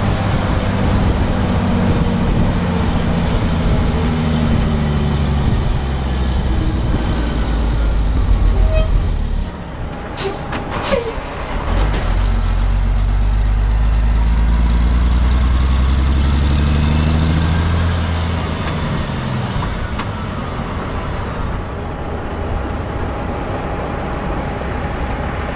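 Heavy truck's diesel engine running under load, heard from on the truck, its pitch falling and climbing again through gear changes. About ten seconds in the engine drops away briefly with a few sharp clicks, then pulls hard again and eases off over the last several seconds.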